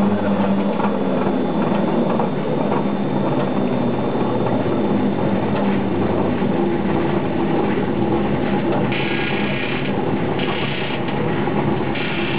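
Modernized Granulaatol TL700 flat-die pellet mill running, its two rollers turning on the die under hydraulic pressure: a steady mechanical drone with dense rattling. A harsher rasping noise breaks in briefly three times over the last few seconds.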